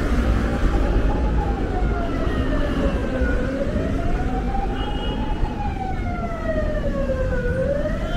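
Emergency vehicle siren wailing, its pitch rising and falling slowly about every four seconds, over the low rumble of street traffic.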